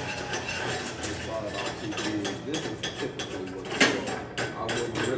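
Irregular metallic clicks and knocks, with one sharper knock about four seconds in; faint voices underneath.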